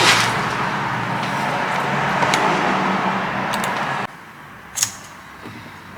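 A steady rushing noise with a faint low hum, which cuts off suddenly about four seconds in, followed by a single sharp click.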